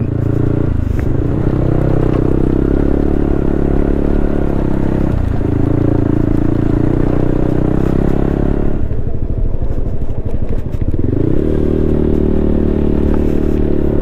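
Motorcycle engine running under way while the bike jolts over a rough dirt track, with rattling and scraping. The engine eases off around nine seconds in, then picks up again with a rising note about two seconds later.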